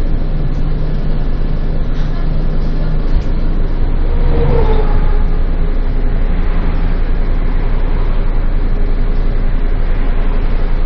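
City bus running along the road, heard from inside: a steady low engine and road rumble, with a brief higher whine about four and a half seconds in.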